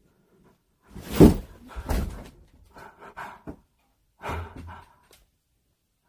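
Knocks and thuds as a cabinet door is worked at and pulled open, the loudest about a second in, followed by smaller knocks and rustling.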